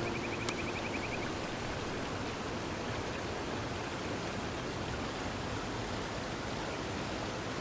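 A steady, even rushing hiss, with the last notes of music fading out in the first second.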